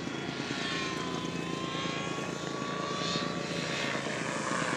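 Electric RC model plane (E-Flite Power 60 brushless motor spinning the propeller) flying overhead: a steady propeller whine whose pitch dips slightly and then rises slowly.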